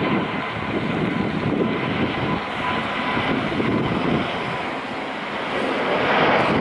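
Boeing 777-200ER jet engines on final approach: a steady rushing noise with a faint high whine, growing louder near the end, with wind buffeting the microphone.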